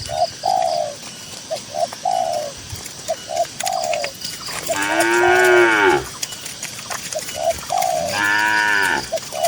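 A cow mooing twice, each a long call that rises and falls in pitch, the first about halfway in and the second near the end. Under and between the moos a dove coos steadily in short repeated phrases.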